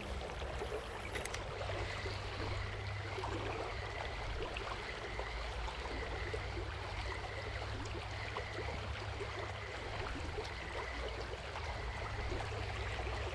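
River water flowing, a steady rushing hiss, over a constant low rumble.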